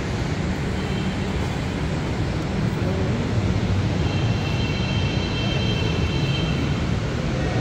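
Steady low rumble of a metro station platform, with a faint high whine about halfway through.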